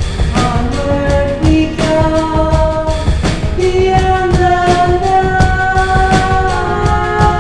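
Background music: a song with a sung melody of long held notes over a steady drum beat.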